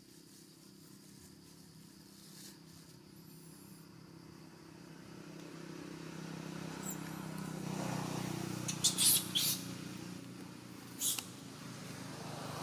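A motor vehicle's engine running steadily and growing louder over the second half, as if coming closer. A few short, sharp, high sounds cut in near the end.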